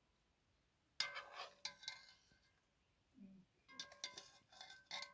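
Metal serving spoon clinking against a metal cooking pot and plate while cooked chicken is dished out. One sharp ringing clink about a second in, then a quick run of lighter clinks near the end.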